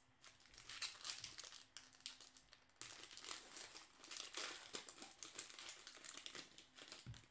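Foil wrapper of a 2016 Bowman baseball card pack crinkling as it is torn open and the cards are pulled out. A dense run of fine crackles, louder from about three seconds in.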